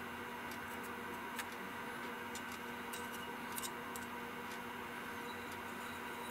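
Steady low room hum with a few faint, light clicks as a thin wooden stick picks at paste-like residue inside an aluminium carburetor float bowl.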